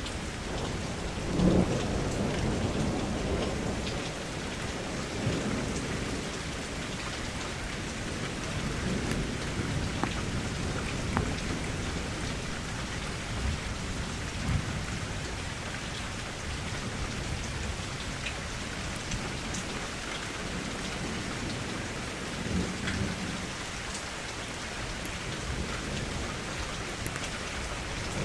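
Steady rain falling against a window, with single drops ticking now and then. Low thunder rumbles swell up several times, the strongest about a second and a half in.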